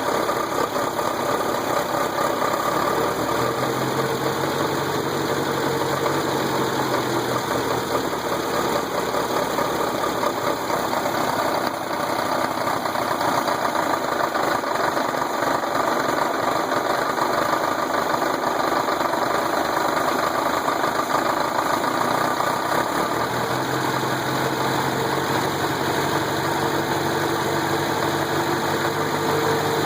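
Volkswagen engine running steadily with a knock through the running sound, which the owner suspects may be rod knock.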